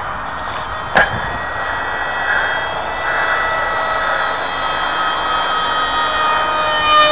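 Electric motor of a homemade foam R/C F-22 model plane whining in flight, several steady high tones that drift slightly in pitch as it passes. A sharp knock about a second in.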